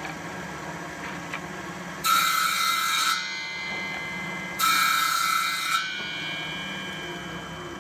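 Woodworking machine's side-mounted rotary cutter disc running steadily, biting into the end of a small piece of wood twice, each cut lasting about a second, to cut a notch in the end of the piece.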